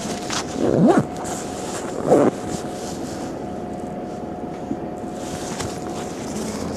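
Heuliez GX 137L city bus heard from inside, its engine running with a steady hum and a thin steady whine. Two short louder noises break in about one and two seconds in.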